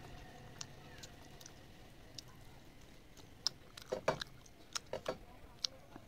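Eating by hand: scattered soft clicks and smacks from chewing and from fingers mixing rice on a metal plate, with a few louder ones close together about four seconds in.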